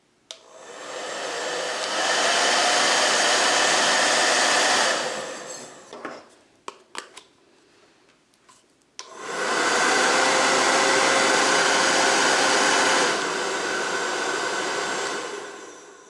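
Rusk W8less 2000-watt hair dryer blowing, run twice: it spins up over about two seconds, runs steadily and winds down, then after a few clicks it starts again about halfway through, runs steadily and winds down near the end.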